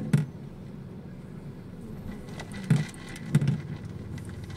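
A car moving slowly, heard from inside the cabin as a steady low rumble, with three short thumps, one at the start and two close together a little past halfway.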